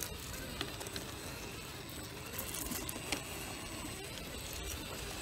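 Radio-controlled rock crawler creeping over rocks: a faint wavering whine from its electric motor and gears, with a few sharp clicks of tires and chassis on stone.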